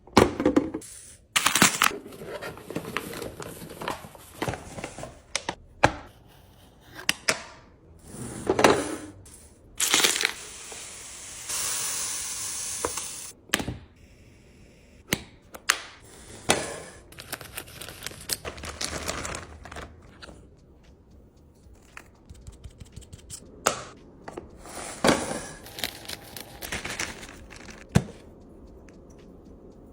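Packaging and containers being handled and set down during restocking: a string of sharp clicks and knocks with some crinkling, and a steady hiss for about two seconds near the middle.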